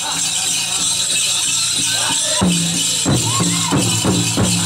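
Powwow drum group singing a chicken dance song over a pounded drum, the voices gliding high, with the dancers' bells jingling steadily throughout. The drum beats come closer together in the second half.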